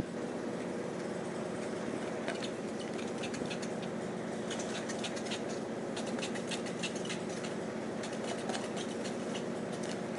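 A cat biting and chewing a plastic drinking straw, making quick runs of sharp clicks and crackles that start about two seconds in, over a steady low hum.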